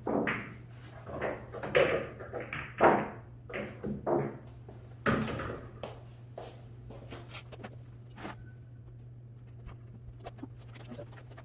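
Handling noises: a run of scrapes, rustles and knocks, about one or two a second, that thin out to scattered light clicks halfway through, over a steady low electrical hum.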